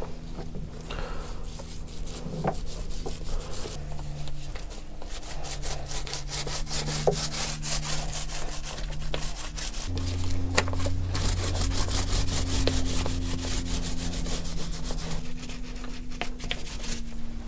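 A paintbrush scrubbing paint onto the wooden frames and planking of a boat's hull: quick back-and-forth bristle strokes, coming faster and louder about five seconds in.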